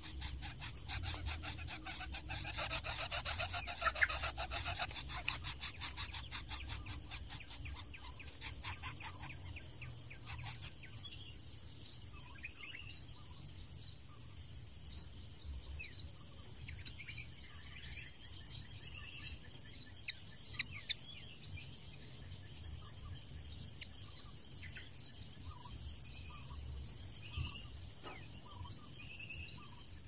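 Outdoor nature ambience: a steady high insect drone, with a rapid pulsing buzz that is loudest a few seconds in and fades out about ten seconds in, then scattered short high chirps over a low rumble.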